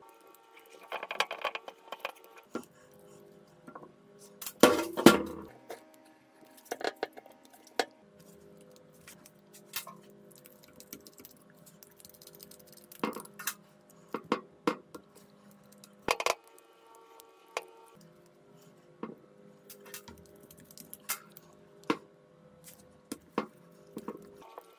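Allen key and screwdriver clicking and clinking against the metal screws and housing of a hammer drill while its screws are undone, with a louder clatter about five seconds in. Quiet background music plays under it.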